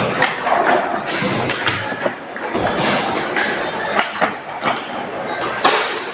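Skateboards rolling on a concrete floor, with repeated sharp clacks and thuds of boards popping, landing and striking a wooden bench. The loudest impact comes near the end.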